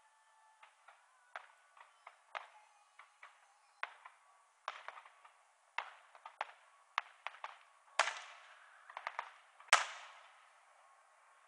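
Aerial fireworks going off in an irregular string of sharp bangs and crackles, the two loudest about eight and ten seconds in. Heard through a cellphone microphone, so the booms come out thin with no low end.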